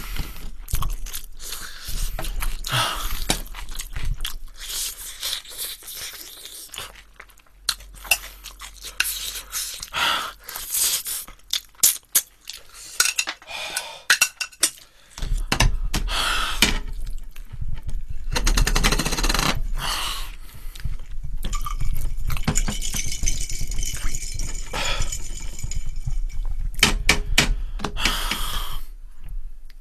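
Tongs and tableware clinking and scraping against a plate and dish, in many short clicks and clatters that grow busier in the second half.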